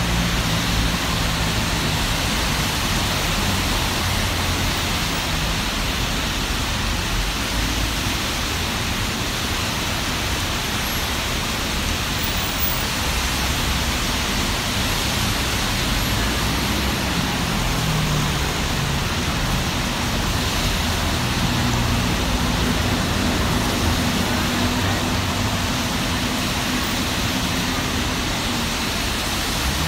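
Steady hiss of rain and car tyres on a wet multi-lane road, with the low hum of car engines passing below that comes and goes.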